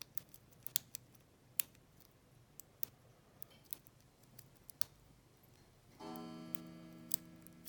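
Sharp, irregular metal clicks of a lock pick and tension wrench working the pins of a small Lane 25 mm padlock. About six seconds in, a clock starts chiming: a ringing tone with many overtones that slowly fades.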